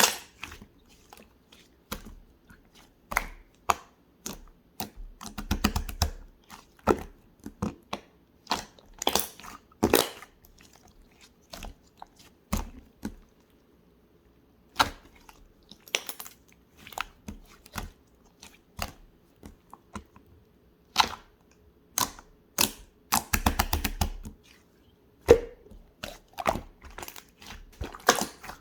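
Slime being squeezed, stretched and poked by hand: irregular sticky clicks and pops, with a couple of quick runs of crackling pops.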